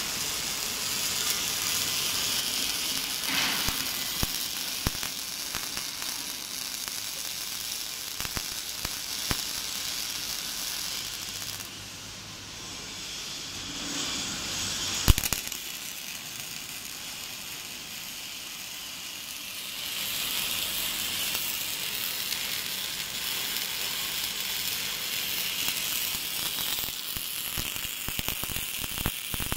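Robotic wire-fed arc welding: the arc crackles and hisses steadily as the torch lays a seam on a steel plate. At about twelve seconds it stops for several seconds, leaving a low hum and one sharp click. The crackling arc then strikes again and runs on.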